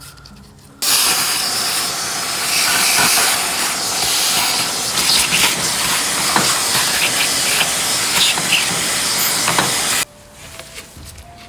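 Compressed-air blow gun hissing loudly as it blasts old dirt out of a motorcycle wheel hub, with small ticks of grit through it. It starts abruptly about a second in and cuts off abruptly near the end.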